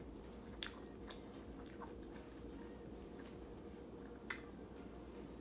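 A person chewing a mouthful of food, with a few soft wet mouth clicks; the sharpest comes about four seconds in.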